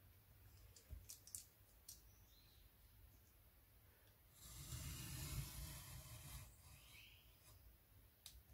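Craft knife drawn along a ruler, slicing through cardstock: a few faint clicks as the blade is set, then one scraping cut lasting about two seconds, and a last click near the end.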